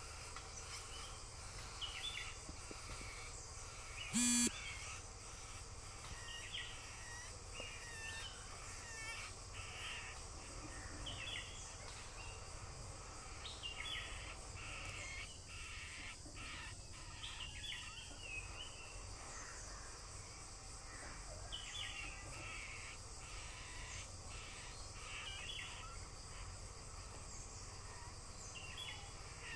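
Birds chirping in short clusters every second or two, with one brief, loud sound about four seconds in.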